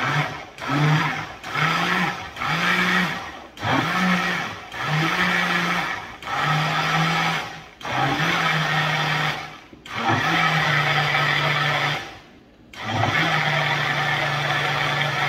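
Countertop blender mixing pancake batter. It is pulsed on and off about nine times, each burst spinning up and the bursts growing longer, and after a short pause it runs steadily.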